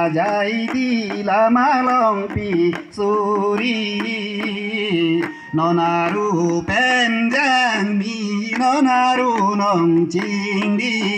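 Karbi folk song: male and female voices singing a wavering melody over a steady held low note, with light clicking percussion.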